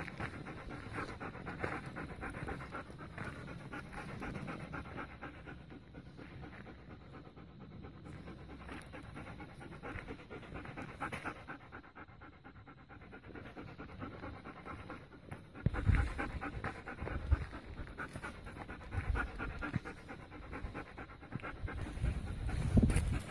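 A dog panting fast and steadily. From about two-thirds of the way through come several loud, low thumps, the loudest near the end.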